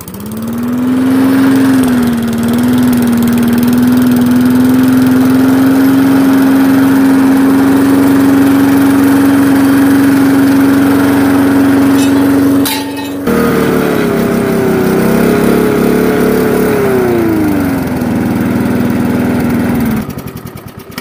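Walk-behind rotary lawn mower's small single-cylinder engine starting up and running at a steady speed. After a short break about two-thirds of the way through, it runs faster, then slows back down and stops about a second before the end.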